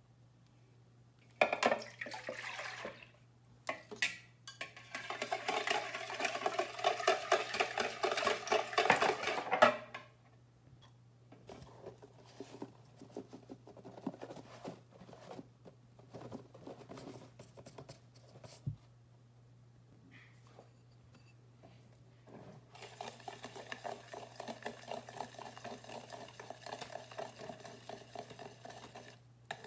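Pancake batter being made in a mixing bowl. Milk is poured from a glass measuring cup for several seconds, a pour with a resonant ring. Then come soft scattered ticks and rustles as dry pancake mix is shaken in from its box, and near the end a steady run of whisking in the bowl.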